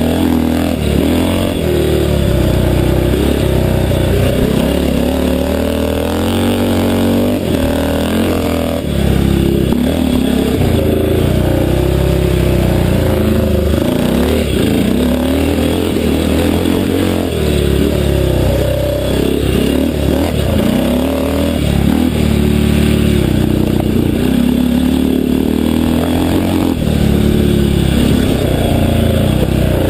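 Delamont 500cc classic motocross bike's engine racing on a grass track, heard from on board the bike, with the revs repeatedly rising and falling under throttle.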